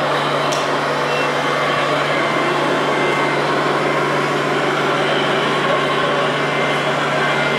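Steady, even engine-like running of radio-controlled model trucks, with a constant low hum under it and a couple of faint short beeps.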